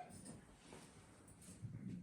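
Near silence: faint room tone, with a soft low sound near the end.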